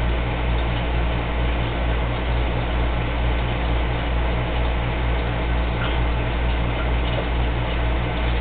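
Small electric aquarium air pump running to aerate a sea-monkey tank: a steady low hum with a slight regular throb over a hiss of air.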